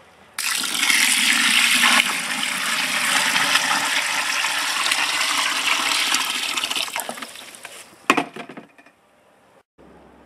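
Water poured from a container into a plastic pot of compost, splashing and bubbling as the soil soaks it up. The pour starts suddenly about half a second in and tapers off after about seven seconds, followed by a short knock.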